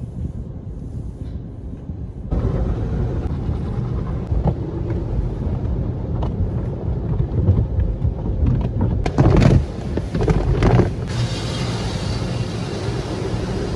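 Automatic car wash heard from inside the car: a low rumble, then from about two seconds in the rotating cloth brushes and water spray wash over the windshield and body, loudest in swells around nine to eleven seconds in, with a steadier hiss of spray near the end.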